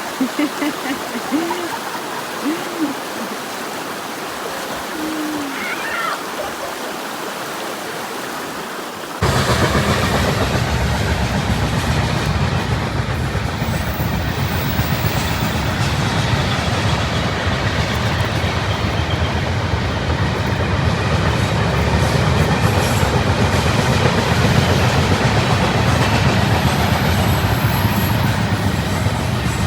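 Rushing river water, with a few brief high voice sounds. About nine seconds in, it cuts suddenly to a louder, steady low rumble with hiss.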